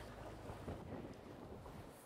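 Faint wind noise on the microphone with soft water sounds around a stand-up paddleboard on open water.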